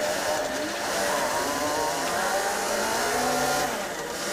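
City bus heard from inside near the front while driving in traffic: its engine and drivetrain running, with pitches that rise and fall as it speeds up and slows, over a steady rush of road noise.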